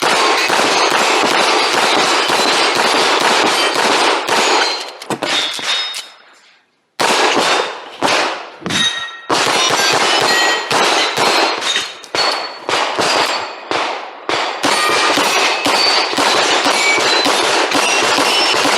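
Rapid pistol shots in strings, with steel knockdown plates ringing and clanging as they are hit. Near the six-second mark there is about a second of near silence before the shooting resumes.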